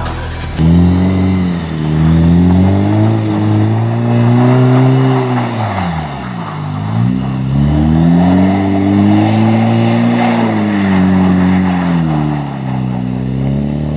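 Jeep Wrangler JL's engine and exhaust, the engine note climbing steadily and dropping back, twice.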